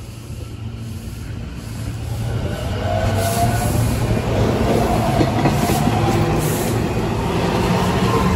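Electric passenger train approaching and then passing close along the platform. Its rumble and wheel noise on the rails grow over the first three seconds and then hold steady and loud as the cars go by.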